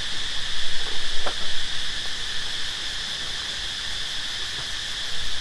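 Steady insect chorus: a constant high-pitched drone.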